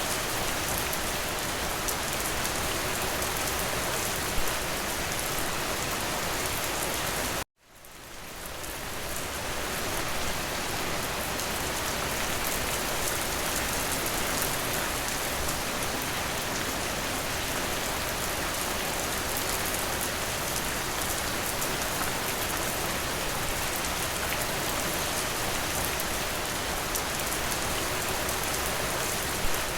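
Steady rain falling, with a few louder individual drops. About seven seconds in, the rain cuts out suddenly and fades back up over a couple of seconds.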